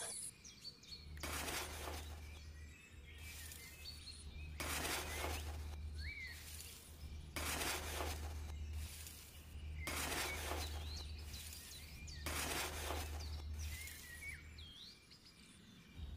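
A small metal toy shovel scraping and scooping loose gravelly soil off concrete: short gritty scrapes a second or two apart, with birds chirping and a low hum underneath.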